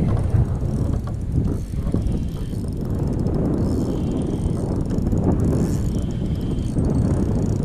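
Spinning fishing reel being wound steadily to retrieve a lure, with fine gear ticking and whirring from the reel. Low wind rumble on the microphone underneath.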